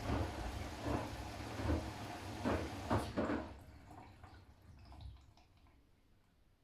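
Siemens iQ500 front-loading washing machine on its delicates/silk wash: the drum turns with a low motor hum while water and laundry swish about once a second. About three seconds in the drum stops and the sound dies away.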